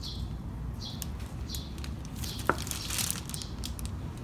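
Plastic rustling and a sharp click about two and a half seconds in, as the electrolyte container is worked loose from the filler ports of a freshly filled sealed motorcycle battery.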